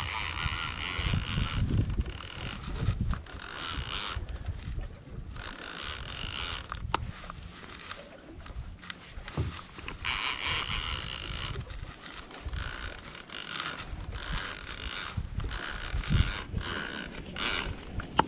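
Large conventional fishing reel being cranked in repeated spurts of a second or two, its gears whirring, as line is won back on a hooked white sturgeon.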